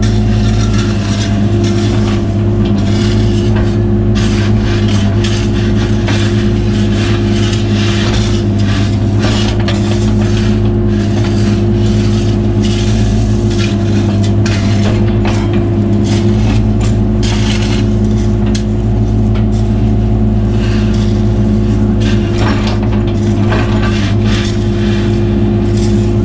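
Cat 303 mini excavator's diesel engine running at a steady speed, with scattered scrapes and knocks.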